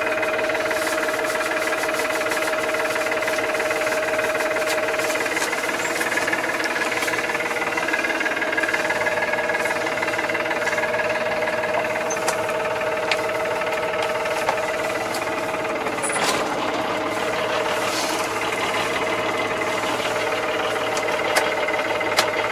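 Ferguson 2220 tractor's diesel engine running steadily, heard from inside the cab, with a few sharp clicks.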